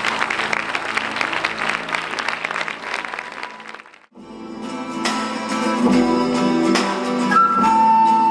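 Audience applause over a held low chord, fading out about four seconds in. Then a folk band starts up with plucked and strummed guitar, and a high held note enters near the end.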